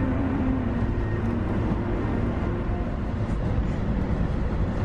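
Steady engine and road noise inside a Land Rover Defender's cabin while driving on a paved highway.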